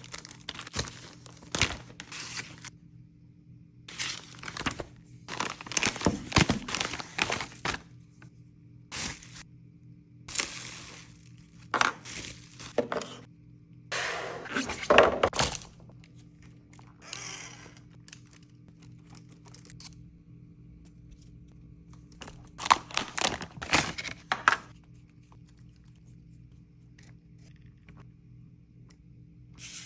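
Packaging of an RC car being opened by hand: cardboard and plastic wrap rustling, crinkling and tearing, with knocks and clicks as pieces are handled. It comes in irregular bursts with quiet gaps, the busiest stretch about fourteen to sixteen seconds in.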